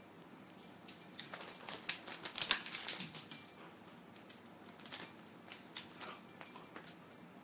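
Pet paws scampering and pattering, in two runs of quick clicking taps, the first louder and denser.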